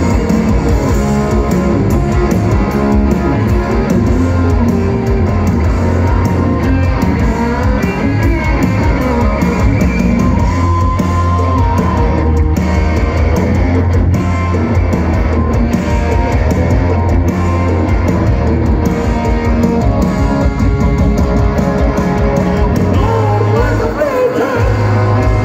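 Live hard-rock band playing loud: a distorted Les Paul-style electric guitar plays lead lines with bent notes over bass and drums, heard from the crowd.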